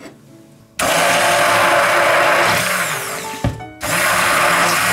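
Hand-held immersion blender beating raw eggs in a bowl, switching on about a second in. It stops briefly with a knock a little past halfway, then runs again.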